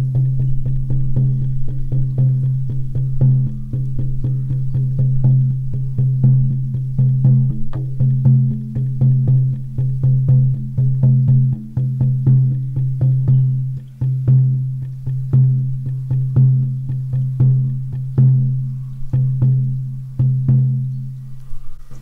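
A 14-inch horse-skin shamanic frame drum on an ash frame, struck with a soft beater in a steady, even beat. Each stroke adds to a deep tone that rings on continuously between the beats.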